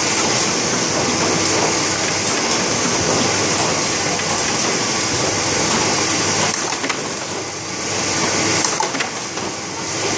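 Stahl BL 200 hardcover book production line running: a steady mechanical clatter with a continuous high hiss, easing briefly twice near the end.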